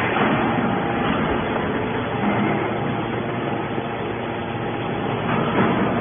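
Hydraulic scrap metal baler running, its hydraulic pump and motor giving a steady mechanical noise while the ram pushes a compressed bale of metal scrap out of the chamber.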